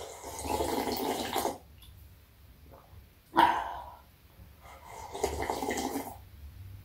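Slurping soup straight from a bowl, twice, each slurp lasting about a second and a half, with a short sharp sound between them.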